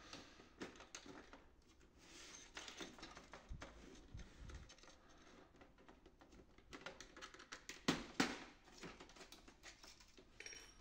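Faint clicks and light scraping of plastic as the tabs on a laser printer's scanner unit are pried loose by hand, with a louder run of clicks about eight seconds in.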